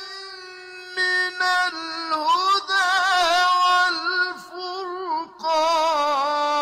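A single high voice chanting melodically with no accompaniment: long held notes with wavering, ornamented turns, in phrases broken by short pauses.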